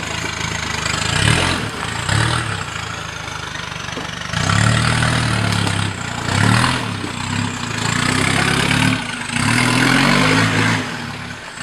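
Off-road 4x4 vehicle engine revving in repeated surges of a second or two each, dropping back toward idle between them.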